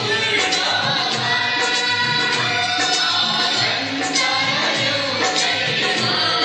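Nepali song with singing over a steady rhythmic beat.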